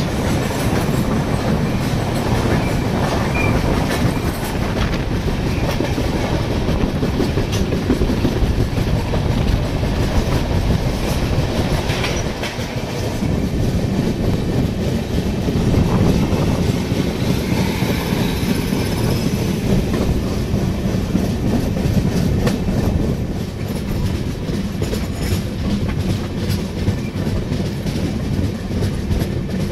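Passenger train coach running on the track: a steady rumble with wheels clattering over rail joints.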